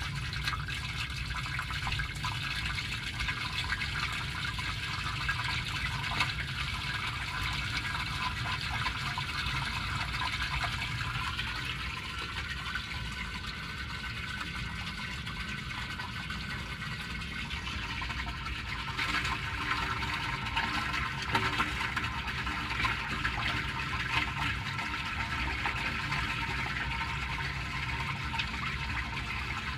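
Water gushing steadily out of a pipe outlet and splashing into a concrete drain pit: the line is running freely with its blockage cleared.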